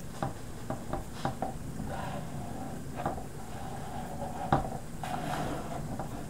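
Hands pressing and rubbing a freshly glued sandpaper sheet flat onto an MDF sanding board: soft scratchy rubbing of palms on the grit, with several light taps early on and a sharper tap about four and a half seconds in.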